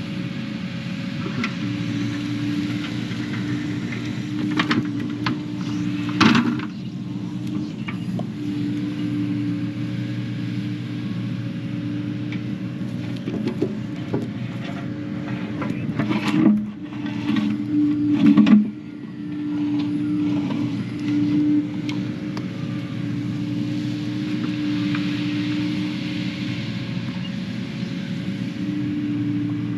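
Diesel engine of a piece of heavy digging equipment running steadily, with bursts of loud knocks and clanks twice, a few seconds in and again past the middle.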